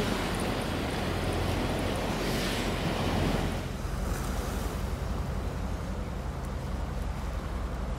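Wind rumbling on the microphone over a steady hiss of outdoor ambience; the ambience drops to a quieter hiss about three and a half seconds in.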